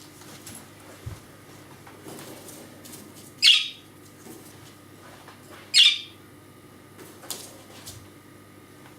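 Budgerigar giving two short, loud calls about two seconds apart, the attention-demanding "Kärrö" call it makes when nobody is watching it.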